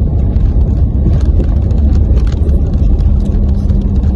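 Steady low rumble of a car heard from inside the cabin: engine and road noise. A faint steady hum joins about three seconds in.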